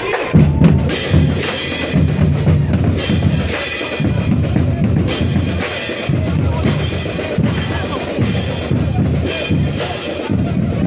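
Marching band playing on the move: bass drum and crash cymbals keep a steady marching beat under sousaphones, horns and other brass.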